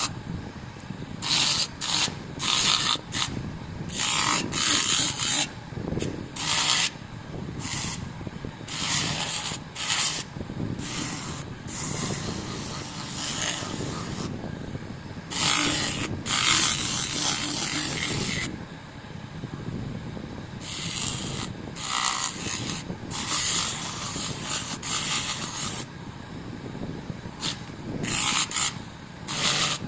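Sandpaper rubbing against a metal motorcycle rear footrest in irregular hand strokes, each a scratchy rasp lasting from a fraction of a second to about two seconds.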